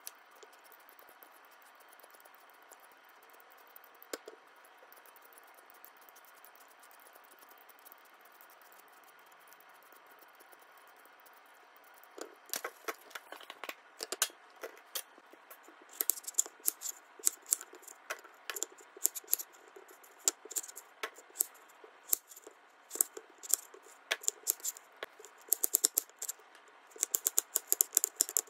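Faint room tone at first; about halfway through, a kitchen knife starts chopping garlic on a plastic cutting board, a run of sharp taps that grows quicker and denser toward the end.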